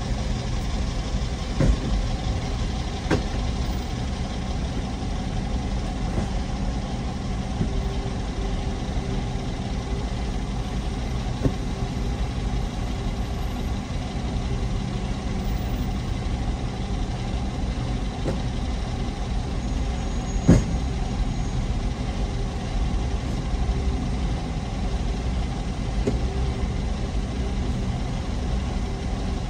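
Car engine idling, heard from inside the cabin while stopped in traffic: a steady low hum, with a few light clicks and one sharper click about twenty seconds in.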